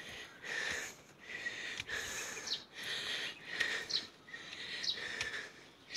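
A person breathing hard while climbing steps, a breath about every second, with a few short bird chirps.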